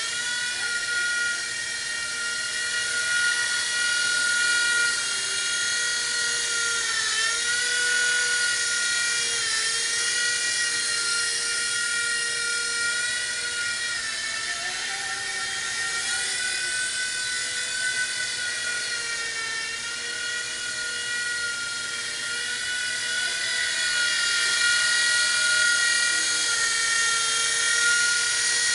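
WLtoy V911 micro RC helicopter's small electric motors whining steadily in flight, high-pitched. The pitch dips briefly now and then.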